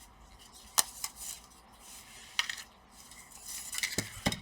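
Small hard laptop parts being handled: a few sharp clicks and clinks, with a closer cluster of clicks and a dull knock near the end.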